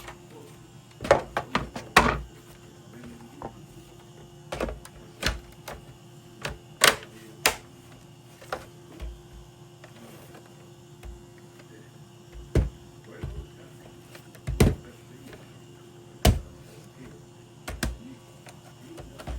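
Small tools and console parts clicking and knocking irregularly during hands-on repair work, sometimes in quick clusters, over a faint steady hum.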